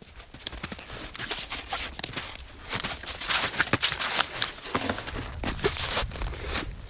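Crunching and scraping of boots and snowshoes in crusty spring snow, mixed with clicks and rustles of snowshoe bindings and packs being handled; a low rumble joins about halfway through.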